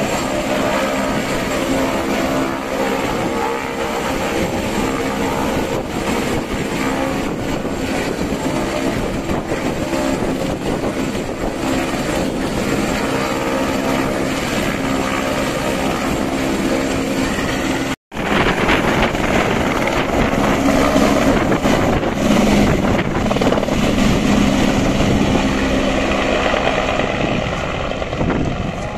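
Light helicopter's turbine and rotor running steadily on the ground. After a cut about 18 seconds in it runs louder and rougher as it lifts off and flies away, easing off near the end.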